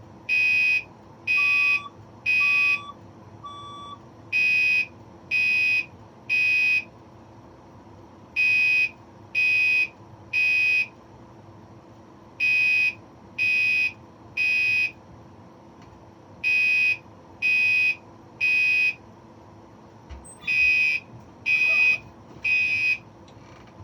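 Fire alarm sounding the temporal-three evacuation pattern: groups of three loud, high-pitched beeps, a new group every four seconds, six groups in all. This is the standard signal to evacuate a building for fire. A fainter, lower beep from a second alarm falls between the first few beeps, over a steady low hum.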